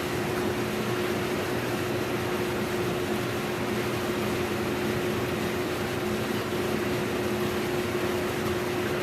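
CHMER 323C sinker EDM running a cut in its oil-filled tank: a steady machine hum with an even hiss.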